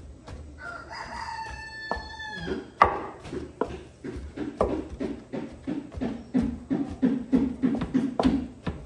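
A rooster crows once, for about two seconds, near the start. Throughout, a hand utensil knocks and squashes boiled potatoes against a metal pot, about three strokes a second, with the loudest knock about three seconds in.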